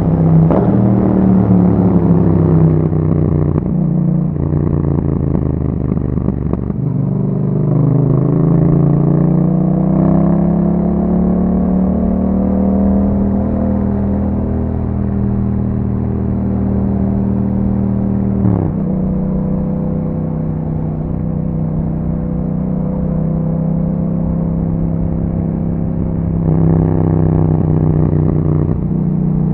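Yamaha MT-07's parallel-twin engine through an Akrapovic aftermarket exhaust, ridden on the road. The engine note climbs and drops through gear changes, with a long rise in pitch under acceleration, a sudden drop partway through, a steady cruise, then a louder pull near the end.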